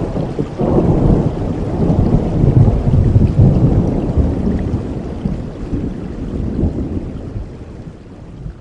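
Steady rain with a long roll of thunder that swells about a second in and slowly dies away over the following seconds.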